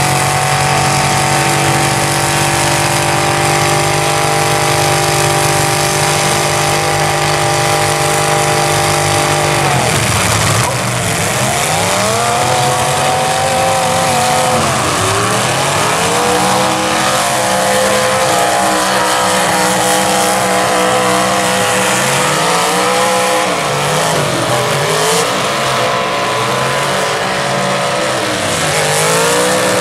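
Demolition derby cars' engines running hard: one held at a steady high rev for about ten seconds, then revving up and down repeatedly for the rest of the time.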